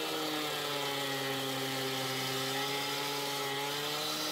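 Hilti DSH 700 two-stroke gas cut-off saw running at high revs as its diamond blade cuts a concrete slab. The engine note is steady, dips slightly in pitch midway and picks back up.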